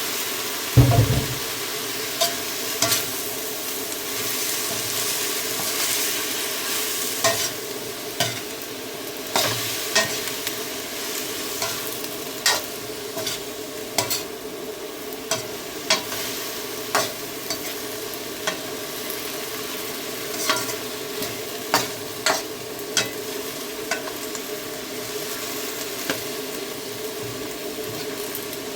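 Chicken and cabbage sizzling as they are stir-fried in a pan, with a spatula clacking and scraping against the pan every second or two. A dull thump comes about a second in.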